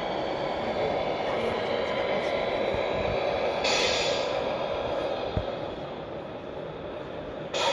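Steady, even din with no clear tones, and two short hisses: one about halfway through and one at the very end.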